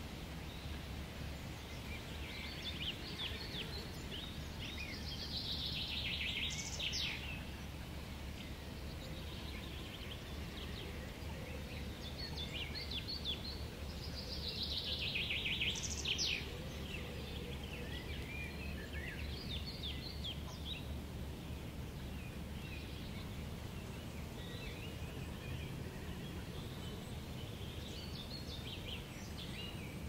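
Steady wind rumble with songbirds singing throughout; two louder song phrases of rapid repeated notes come about six and fifteen seconds in.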